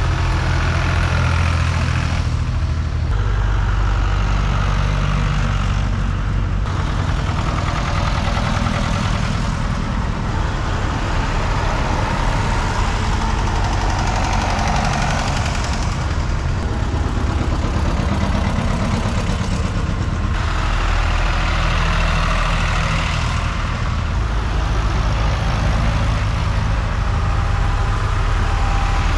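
Vintage farm tractor engines running as one old tractor after another drives past, a steady low engine note throughout that shifts in pitch and strength every several seconds as each tractor goes by.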